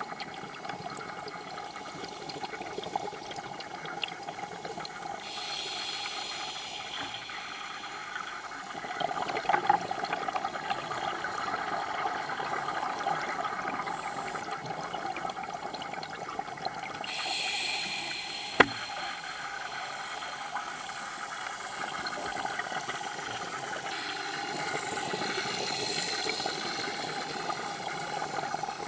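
Scuba breathing heard underwater through a camera housing: steady bubbling and hissing of regulator air, swelling three times into longer stretches of brighter hiss. A single sharp click about two-thirds of the way through.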